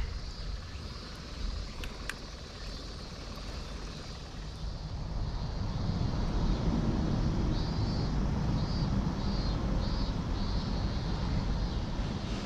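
A low engine rumble, like distant traffic or an aircraft passing over, swells from about four seconds in and then holds. Short high chirps sound over it in a few spells.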